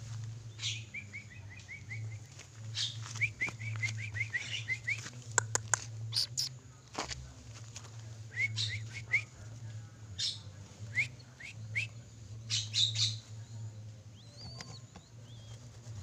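Bursts of short, rapidly repeated rising chirps, about eight a second, coming several times, with scattered sharp clicks and a steady low hum underneath.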